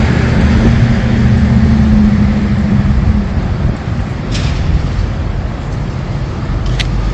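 A motor vehicle's engine running: a low, steady drone that weakens a little after three seconds, with a few faint, short high chirps later on.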